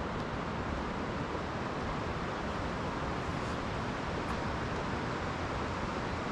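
Mountain river rushing close by, a steady, even noise.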